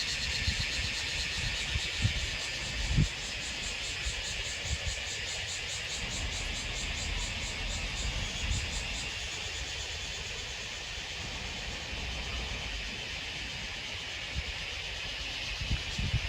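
Cicadas shrilling together in a dense, steady buzz with a fast pulsing in the upper part. Scattered low thumps come through under it, the loudest about three seconds in.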